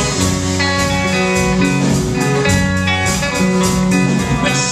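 Guitar-led band music playing an instrumental passage of a song, with held bass notes under the guitar and no singing.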